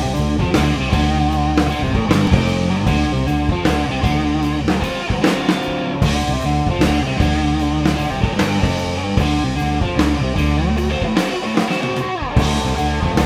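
Rock power trio playing an instrumental intro: a guitar riff over bass guitar and a drum kit keeping a steady beat. There is a brief break about twelve seconds in before the band comes back in.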